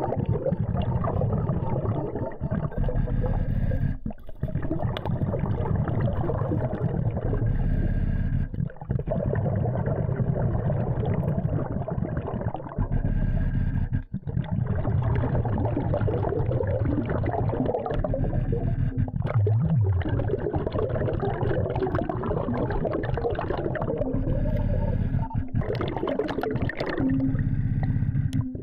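Muffled underwater sound of a diver breathing through a regulator on a surface-fed hookah system: a steady low rumble of breaths and exhaled bubbles, broken by short pauses every few seconds.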